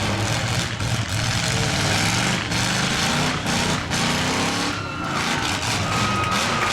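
Demolition derby car engines running, a steady low drone that rises in pitch a few times as they rev.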